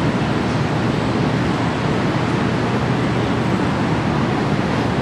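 Steady roar of city street noise, a dense even rush with no sirens or separate events standing out.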